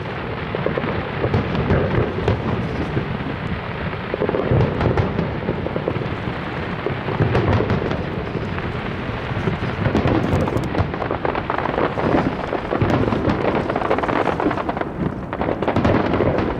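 Fireworks display: a dense, continuous barrage of bursting shells, a steady crackle with deep booms swelling up every few seconds.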